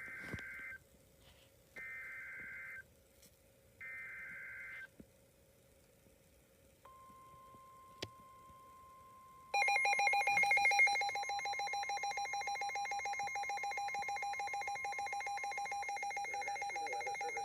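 Emergency Alert System activation: three one-second bursts of SAME header data tones, about a second apart, then a fainter steady single tone. About halfway through, the loud, steady two-tone EAS attention signal begins and holds to the end.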